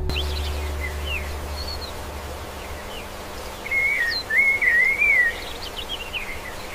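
Songbird chirping: short swooping whistled notes, then a louder wavering warble a little past halfway. A low steady rumble underneath fades out near the middle.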